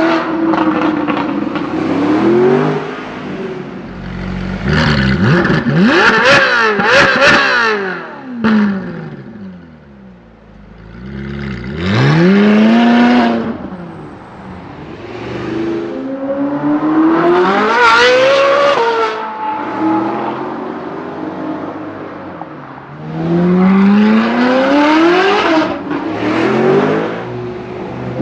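Novitec Rosso-exhausted Ferrari 458 Italia's V8 revving and accelerating hard several times. The engine pitch climbs in repeated pulls, with quick blips of the throttle a few seconds in.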